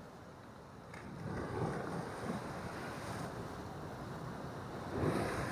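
Sea waves washing onto a rocky shore, with wind buffeting the microphone; the surge swells about a second in and again near the end.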